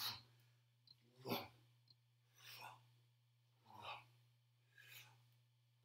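A person breathing out in short, quiet huffs about once every second or so while moving, over a steady low hum.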